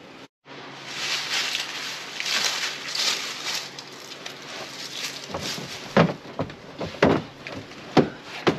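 Scuffing and rustling, then four sharp thumps about a second apart near the end: a person climbing up onto a pickup truck's bed.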